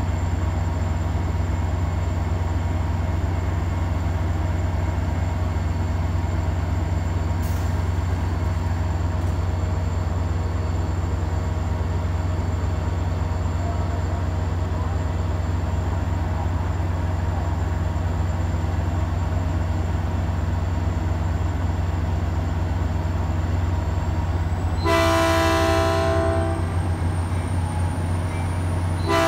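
Diesel locomotive of a stopped Caltrain commuter train idling with a steady low rumble. Near the end the locomotive's multi-tone air horn sounds one blast of about a second, and a second blast begins a few seconds later: two short blasts, the signal that the train is about to move off.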